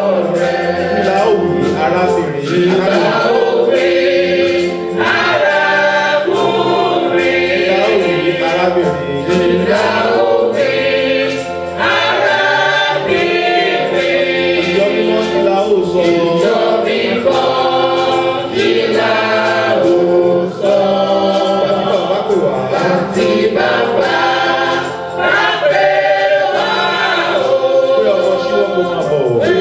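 Congregation singing a hymn together in chorus.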